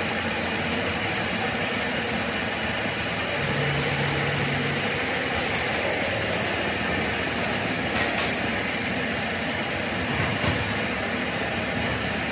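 Metalworking machinery running steadily with a dense mechanical noise, and a few sharp metallic clicks late on.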